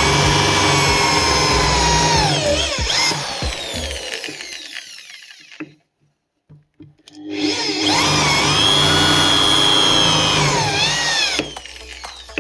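An electric power tool's motor running at speed. It drops in pitch and dies away about five seconds in, starts up again about two seconds later, then falls in pitch once more and cuts off near the end.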